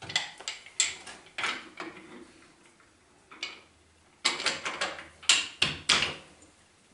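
Steel parts clinking and clattering as they are handled and set down on a metal workbench, in irregular clusters of sharp knocks with a quiet pause of about two seconds in the middle.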